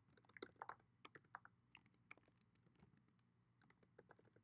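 Faint typing on a computer keyboard: quick, irregular keystrokes entering a line of code, thicker in the first couple of seconds and sparser after.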